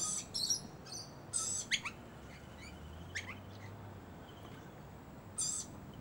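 Noisy miners calling: a quick run of short, high calls in the first second and a half, a couple of fast downward-sliding notes, then one more call near the end. This is their friendly call, given when one bird wants another to follow.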